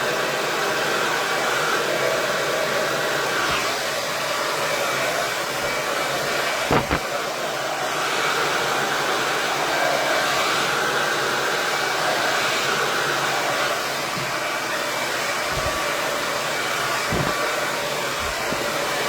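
KISS 1875-watt Pro tourmaline ceramic hair dryer running steadily, with one sharp knock about a third of the way in and two softer thumps near the end.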